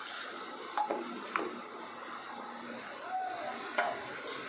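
Grated carrots sizzling softly in ghee in a pan, with a few light knocks. A slotted spatula starts stirring them near the end.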